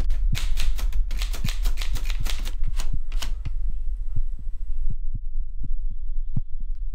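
Typewriter keys clacking in quick, uneven strokes for about three seconds, then thinning out, over a deep steady hum. Low, heartbeat-like thuds follow at about two a second.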